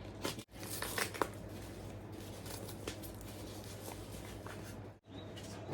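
Faint rustling and small clicks of a small package being opened and handled by gloved hands, over a steady low hum.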